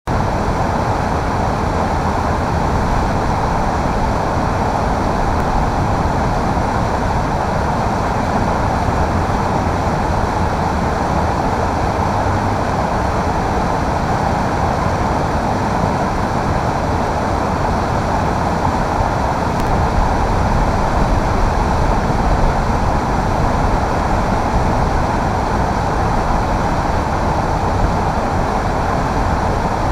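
Loud, steady roar of a whitewater standing wave and rapids at a river kayak play spot.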